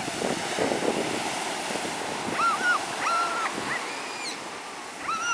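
Ocean surf washing in over a sand beach, a steady hiss of breaking waves. A few short, high whining calls come and go about halfway through and again near the end.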